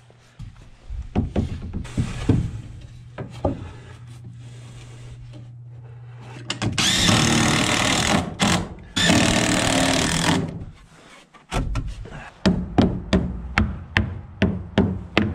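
A cordless DeWalt impact driver driving a screw into wooden door trim in two runs, the first about two seconds long and the second about a second and a half. Near the end comes a quick series of claw-hammer blows on a nail, about three a second. A few scattered knocks come before the driver starts.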